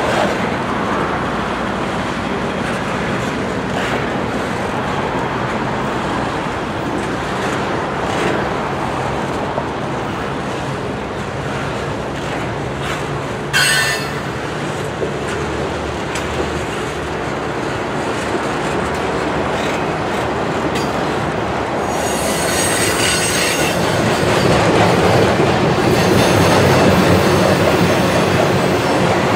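Norfolk Southern intermodal freight train's cars rolling past, a steady wheel-on-rail running noise. There is a brief sharp screech about halfway through, and from a few seconds before the end a high wheel squeal over louder running.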